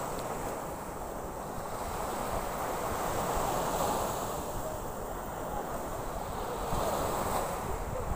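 Sea surf washing in around waders' legs and onto the shore, with wind buffeting the microphone. The wash swells twice, about three seconds in and again near the end.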